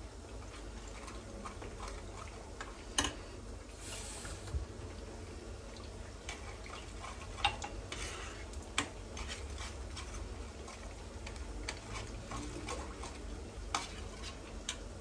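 Food frying in a pan, sizzling softly, while a metal spoon stirs and turns it, clicking sharply against the pan a few times.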